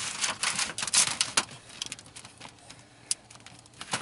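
Thin aluminum flashing sheets crinkling and clicking as they are handled and pressed onto asphalt shingles, with a run of quick scraping strokes for about the first second and a half, then a few scattered clicks and one sharp click about three seconds in.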